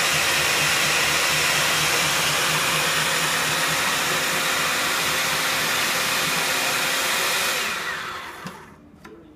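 Veggie Bullet electric spiralizer motor running steadily as a sweet potato is pushed through its ribbon blade. Near the end it winds down and stops.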